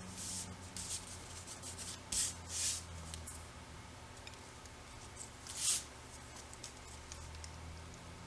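Paper being handled and rubbed by hand in short, scattered scrapes and rustles. The loudest scrapes come a little after two seconds and again near six seconds.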